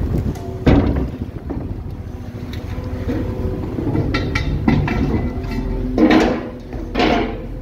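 Steady rumble of a fishing boat's engine with wind noise as the longline is hauled. There is a sharp knock about a second in, and two loud metallic clanks near the end as the anchor chain comes over the rail roller.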